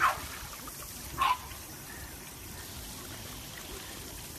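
A French bulldog gives two short, high, falling cries about a second apart over the steady trickle of water from a hand shower during a bath.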